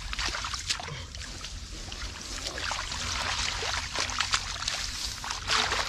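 Hands splashing and squelching in shallow muddy water, with many small irregular splashes and sloshes.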